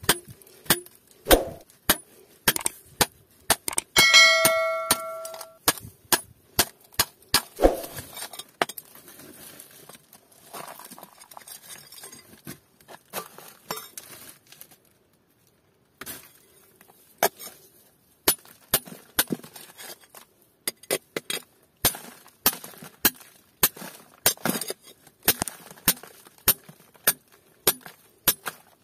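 A steel bar chipping at a rock ore vein with repeated sharp metal-on-rock strikes. One blow about four seconds in leaves the bar ringing for over a second. After a short pause past the middle, the strikes come at about two a second.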